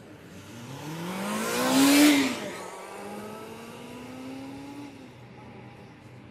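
A car driving past while accelerating. Its engine note rises in pitch, is loudest about two seconds in, drops with a gear change, then climbs gently again and fades away by about five seconds.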